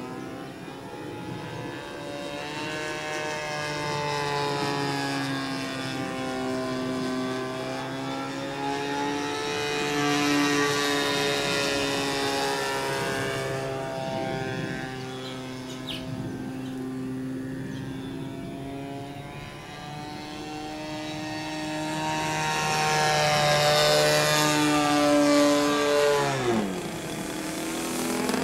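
DLE-20 single-cylinder two-stroke gasoline engine of a quarter-scale RC Yak 54 in flight. The engine note wavers up and down in pitch and loudness as the plane manoeuvres, then drops steeply in pitch and climbs straight back near the end.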